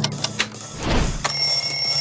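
Cartoon alarm clock sound effect: a few quick clicks, then the bell starts ringing about a second and a half in with a steady, high ring.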